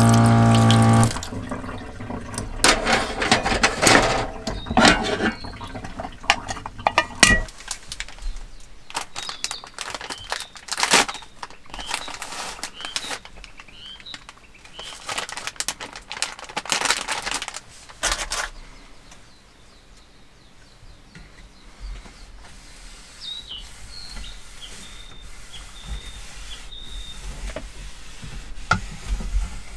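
Clatter and handling noises of washing up and cleaning: a short steady hum in the first second as the tap runs, pans and utensils knocking, then the rustle of a wet-wipe pack and wiping a wooden table. Small birds chirp outside at times, most clearly in the quieter last third.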